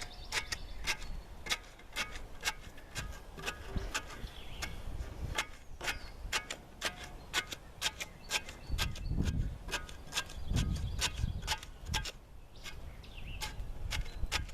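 Shovel handle tapping down freshly poured concrete: quick, irregular sharp taps, two or three a second, with a few low rumbles near the end.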